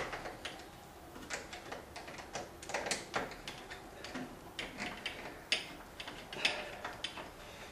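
Screwdriver turning the mounting screws of a door knob lock: irregular small metal clicks and scrapes.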